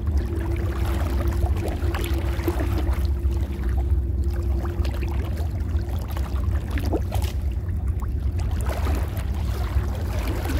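Shallow creek water sloshing and trickling around someone wading, over a low rumble, with small scattered ticks and a steady hum that stops about seven seconds in.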